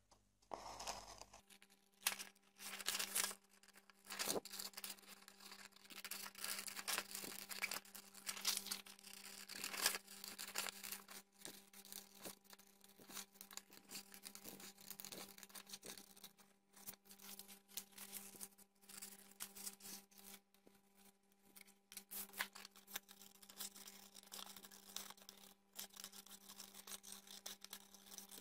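Scissors snipping through a sheet of paper in many short, irregular cuts, with the paper rustling as it is turned along a spiral line.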